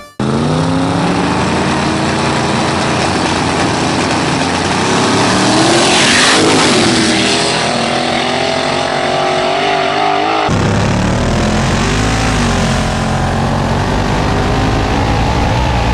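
Two street-race cars launching at full throttle, their engines revving up and stepping through the gears. The sound is loudest around six seconds in, as they pass with a rush of noise and the pitch drops. After a cut about ten seconds in, a car's engine is heard pulling hard from on board, with wind rush.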